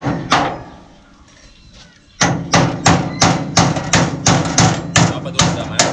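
Hammer blows on the steel fittings of a hand tractor: one blow near the start, then from about two seconds in a steady run of about eleven ringing blows, roughly three a second.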